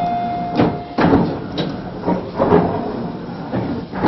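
Inside a Tobu 50090-series commuter train: a held electronic tone that stops about a second in, then a series of knocks and clunks over the steady noise of the train.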